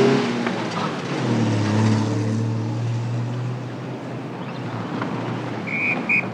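An engine passing and fading away, its pitch dropping at the start and then holding steady as it recedes. Near the end come two short high beeps.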